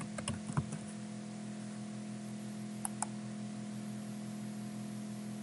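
Steady low electrical hum with hiss on the recording. Over it come a few soft computer keyboard and mouse clicks in the first second and a quick pair of clicks about three seconds in.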